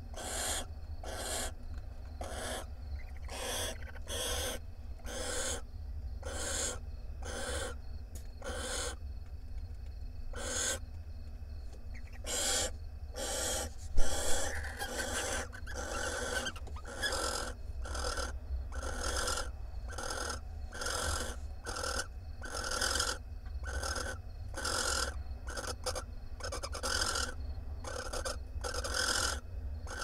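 Barn owls giving a long series of rasping, hissing calls, about two a second. A single sharp knock sounds about fourteen seconds in, over a steady low hum.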